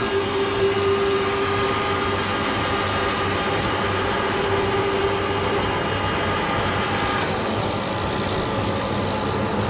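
Bafang e-bike motors running continuously on test stands under load for long-duration endurance testing: a steady mechanical hum with several thin whining tones. The strongest tone fades out about five seconds in, and a few higher ones stop about seven seconds in.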